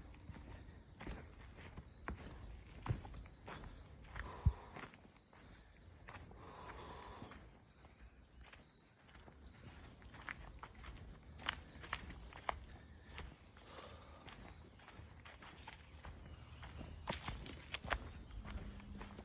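A steady, high-pitched insect chorus, with footsteps on a forest path and scattered light clicks and knocks.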